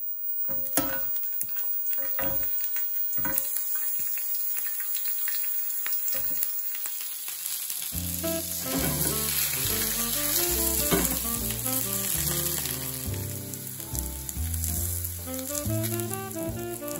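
Fennel slices sizzling as they fry in a pan on a gas hob, with several sharp clicks and knocks from the pan and chopsticks in the first few seconds. Background music comes in about halfway through.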